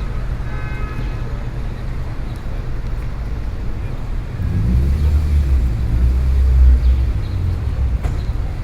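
City street ambience: a steady low rumble of traffic, swelling as a heavier vehicle passes about halfway through and loudest a little past two-thirds of the way, then easing. A short pitched tone sounds in the first second.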